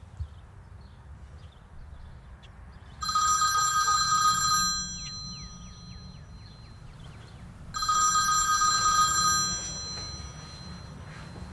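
A phone ringing twice with an electronic ringtone of several steady high tones, each ring about two seconds long and the rings a few seconds apart.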